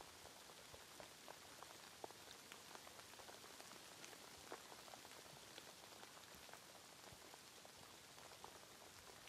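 Faint, steady rainfall: an even hiss with many small raindrop ticks scattered through it.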